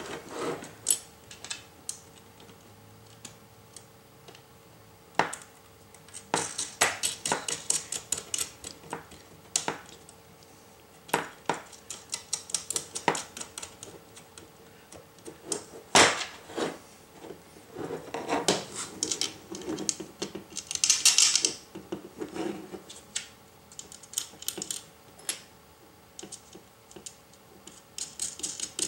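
Small bolts, washers and nuts clicking and clinking against a black metal TV-mount bracket as they are fitted by hand, in scattered clusters of clicks with one sharper knock about sixteen seconds in.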